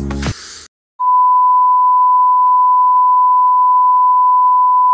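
Colour-bars test tone: one steady, unbroken beep at a single pitch that starts about a second in, after background music stops.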